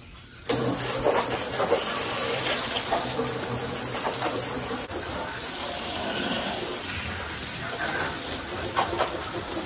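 Garden hose spray nozzle switched on about half a second in, then a steady hiss of water spraying onto window glass and vinyl siding, rinsing off the soap.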